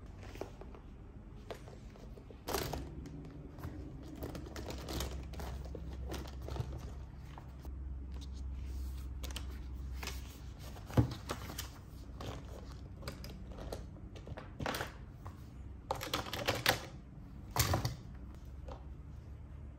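A paper notebook being handled on a desk: pages turned and rustling, with scattered taps and clicks as the notebook is opened flat and pens are laid on it. The sharpest click comes about halfway through, and a cluster of rustles and taps near the end.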